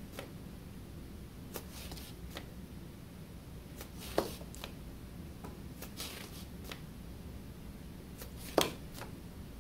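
Faint, scattered clicks and taps of hands handling a small whittled wooden figure and a fine paint tool while dotting paint onto it, over a low steady hum. Two clicks stand out, about four seconds in and near the end.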